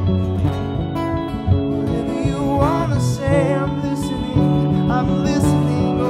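A man singing to his own strummed acoustic guitar: a slow worship song.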